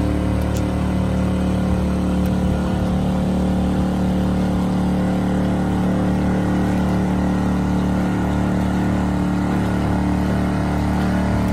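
Small outboard motor running at a steady, unchanging speed, driving a canoe along: a constant low engine hum.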